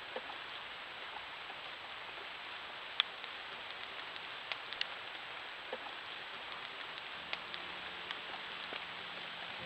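Steady rain falling, a dense even hiss with scattered single drops ticking sharply, the loudest about three seconds in. Soft music fades in near the end.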